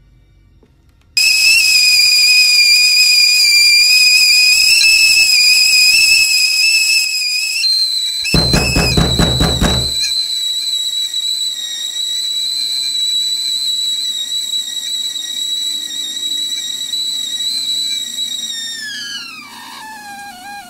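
A loud, high-pitched whistle with several overtones starts suddenly about a second in and holds steady. It steps down to a lower pitch near the middle, where a brief loud pulsing rumble cuts across it, then slides down in pitch near the end.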